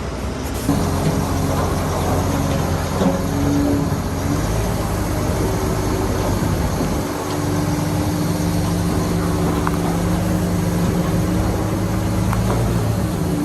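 Heavy construction machine's diesel engine running steadily, its engine speed shifting a couple of times.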